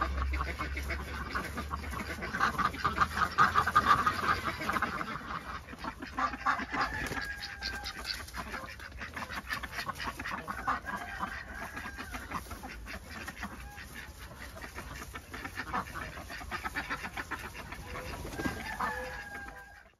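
Indian Runner ducks quacking in a rapid, loud chorus for the first five seconds, then calling more sparsely.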